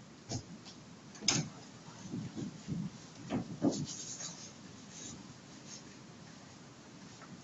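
Objects being handled and moved at a lectern: a few light knocks, the sharpest about a second in, then a run of rubbing and bumping between about two and four seconds in, over quiet room tone.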